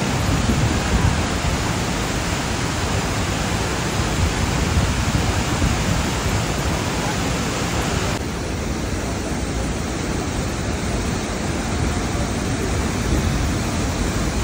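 Large waterfall pounding into its pool: a loud, steady rush of falling water. About eight seconds in it turns duller, with less hiss.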